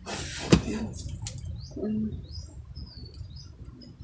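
Small birds chirping in short, quick rising and falling notes, opened by a brief rustle with a sharp knock about half a second in.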